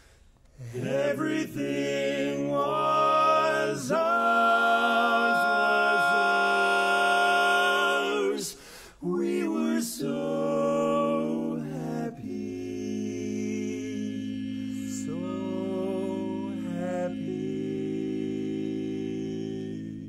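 Male barbershop quartet singing close-harmony chords a cappella: a loud opening phrase, a brief break about eight and a half seconds in, then softer, long-held chords that stop near the end.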